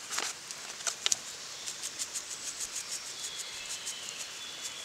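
Potato seasoning shaken from a paper packet onto sliced potatoes in a cast-iron pot: a few crisp rustles of the packet, then a quick, even run of short shakes.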